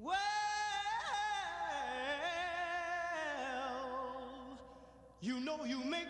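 Background music: a singer holds one long note that slowly fades out, then a new sung phrase begins about five seconds in.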